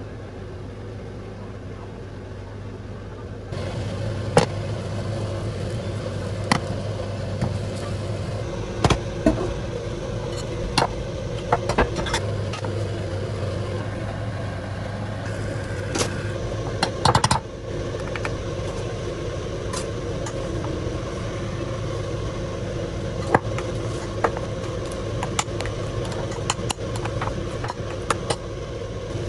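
A steady low hum runs under scattered sharp clicks and taps of kitchen utensils. Near the end, a metal fork clinks repeatedly against a glass bowl while mashing cooked sweet potato.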